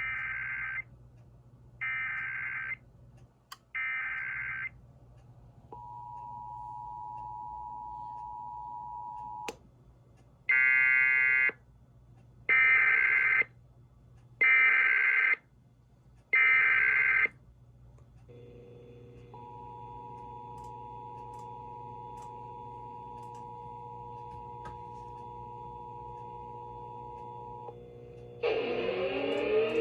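Emergency Alert System activation tones. Three short screeching SAME data bursts about a second apart are followed by a few seconds of the steady two-tone attention signal. Then come four louder data bursts and, after a short pause, the two-tone attention signal again for about eight seconds.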